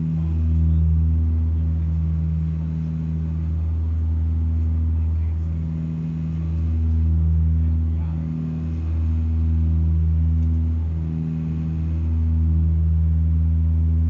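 De Havilland Canada Dash 8-100's turboprop engines and propellers droning, heard inside the cabin while climbing out after takeoff. The low, steady drone swells and fades every two to three seconds.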